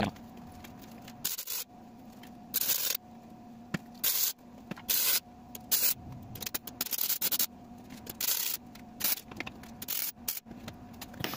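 Arc welding: a string of short crackling bursts, each under about a second with gaps between, as tack welds go onto a steel rear differential mount. A steady low hum runs underneath.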